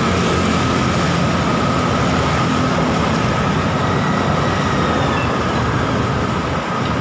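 Loud, steady road traffic noise from passing motor vehicles, engines and tyres, with a faint steady high tone running through it.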